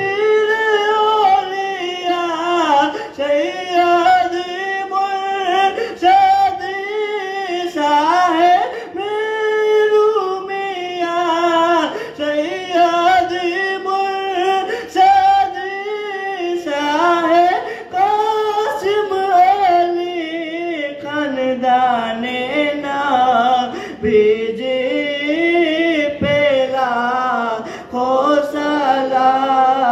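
A man singing a devotional Urdu song of praise (manqabat) solo into a microphone, in long held, wavering phrases with no instruments.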